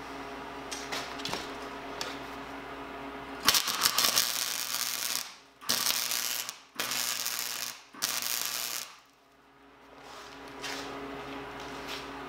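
Flux-core wire-feed welder's arc running in four short bursts, about 1 to 2 seconds each, between about 3.5 and 9 seconds in, as tack welds join the ends of a wheelbarrow wheel rim. Flux-core wire spatters badly. A steady hum sounds before and after the welding.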